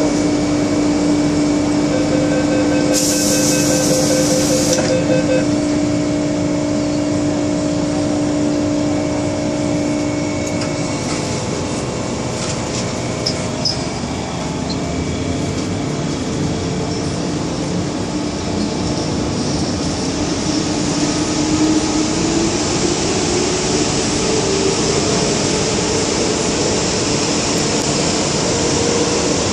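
MTR M-Train electric subway car heard from inside: a steady hum while the train stands, a brief hiss about three seconds in, then the traction motors whine, rising in pitch as the train pulls away and speeds up in the tunnel.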